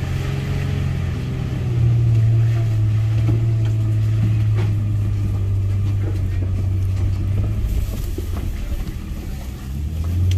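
Toyota FJ Cruiser's 4.0-litre V6 engine pulling at low revs while crawling over rough off-road ground, the revs rising briefly at the start and dipping near the end, with a few scattered knocks.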